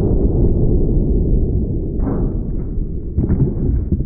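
Slowed-down, deep rumbling boom of a .338 Lapua Magnum bullet striking a quarter-inch steel plate backed by wood blocks, slowly dying away. Two sharper knocks come about two and three seconds in as the plate and wood blocks tip over.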